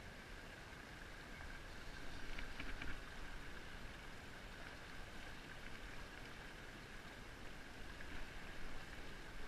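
River current rushing and lapping around a small inflatable pontoon boat, a steady faint wash with a low rumble. A few short clicks come about two to three seconds in.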